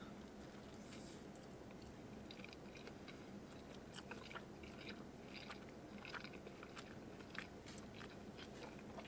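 Faint mouth sounds of a person chewing a bite of chicken bacon ranch pizza: soft, irregular wet clicks and smacks over a low steady hum.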